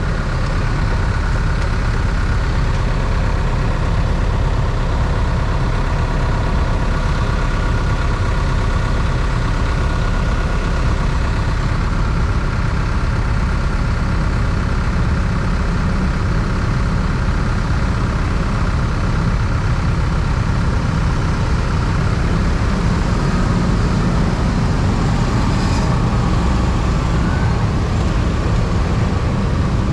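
Motorcycle running at a steady pace: a continuous low rumble of engine and road noise, with faint steady tones above it.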